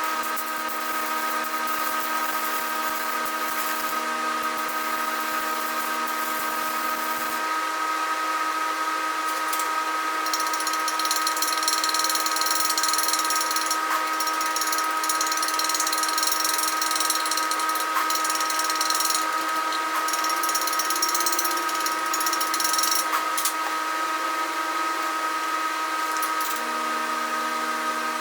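Electric grinder running steadily with a constant motor whine, with a harsher high-pitched hiss from about ten to twenty-three seconds in as it bears on metal.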